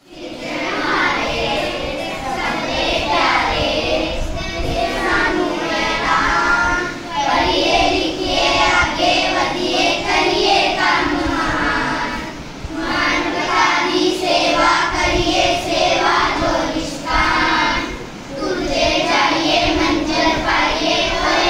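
A group of schoolchildren singing a prayer together in unison, in phrases with short breaths between them.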